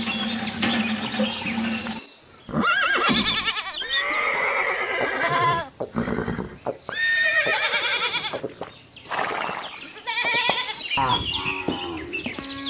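Water trickles from a thin tube for about two seconds, then a series of horse whinnies, wavering calls that break off and start again several times. A cow's moo begins near the end.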